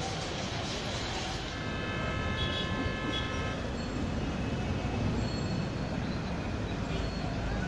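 Street traffic noise with a vehicle horn sounding steadily for about two seconds, starting about a second and a half in.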